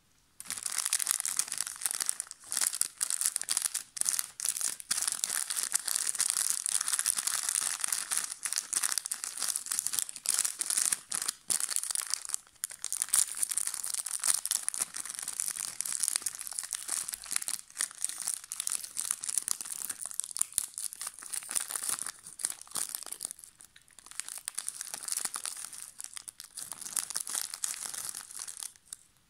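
Foil-lined plastic snack wrapper of a cream wafer packet being crinkled and torn open by hand: dense crinkling with short pauses, starting about half a second in.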